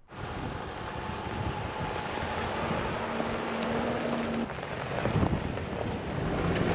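Steady road and wind noise of a vehicle driving along a gravel road, heard through an open side window, with wind buffeting the microphone.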